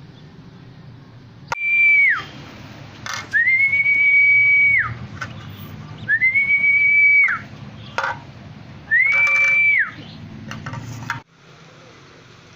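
Four long, steady high whistles, each held on one pitch and then dropping sharply at its end, with short gaps between them.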